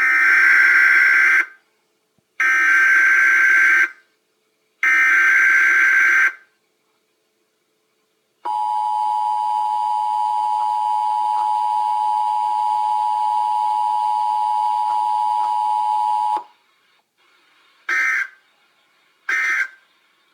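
Emergency Alert System broadcast tones. Three buzzy data bursts of about a second and a half each open the message header, then an eight-second steady two-tone attention signal sounds, then two short bursts near the end begin the end-of-message code.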